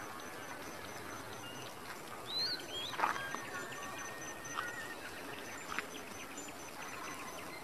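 Open-field farm ambience: a steady hiss with scattered short bird calls, a sharp click about three seconds in, and a faint, even, high pulsing throughout.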